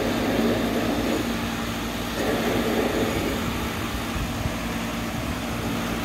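Belt-driven blower motor of a direct-fired makeup air unit running steadily, a constant hum with bearing noise over it. The bearings have no play, just the noise; the belt is loose and the drive pulley worn.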